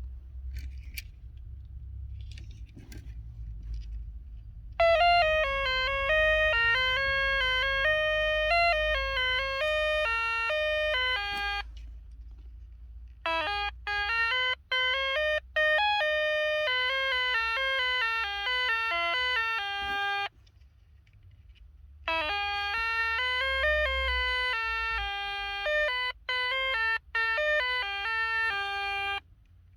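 A 1980s electronic sound-effects keychain playing three short beeping tunes of rapid stepped notes, with brief pauses between them. A few faint clicks come before the first tune.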